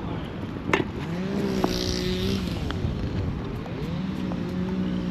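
Golf cart running, its motor pitch steady, dipping about halfway through as it slows and then picking back up. A sharp click under a second in.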